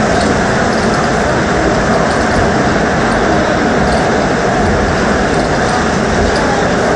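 Airport Railroad (AREX) electric train running steadily at speed, a loud continuous rumble of wheels on rail and running gear with no change in pitch or level.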